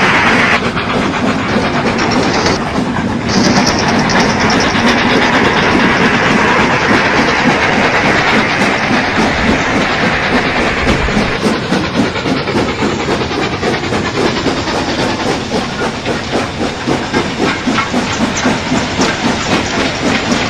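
Large-scale outdoor model railway train running past over the track, with a steady hiss that is strongest in the first half. A rhythmic clickety-clack of wheels over rail joints becomes more distinct from about halfway through.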